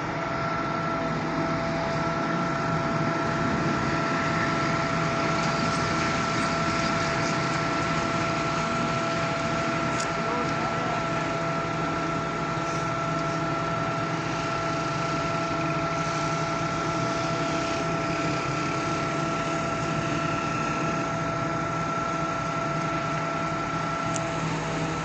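Concrete pump machinery running steadily: a constant engine drone with a steady high-pitched whine over it.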